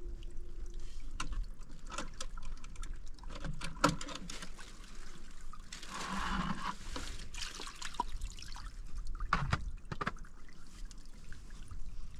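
Water pouring and trickling, with scattered small clicks and knocks; the fullest stretch of pouring comes about six seconds in.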